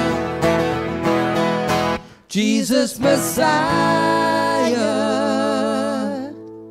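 Live worship music: an acoustic guitar strumming with a singing voice. The strumming breaks off about two seconds in, and held notes then fade away near the end.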